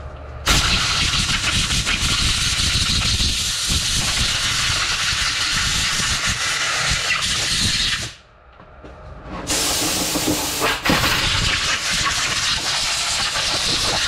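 Compressed-air blow gun hissing as it blasts dust out of a core drill's gear housing, in two long bursts: the first about seven and a half seconds, then after a short break a second of about four and a half seconds.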